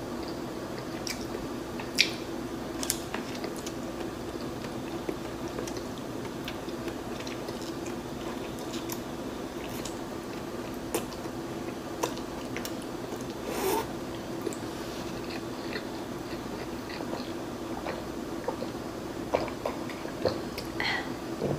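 Close-miked eating sounds: chewing a mouthful of garlic noodles lifted with chopsticks, with scattered small clicks and mouth noises over a steady low hum. Near the end comes drinking from a glass of water.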